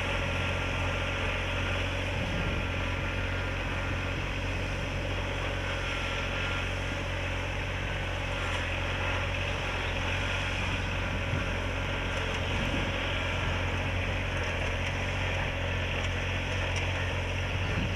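Engine of a FourJet:S self-propelled crop sprayer running steadily with a low hum as it drives along spraying.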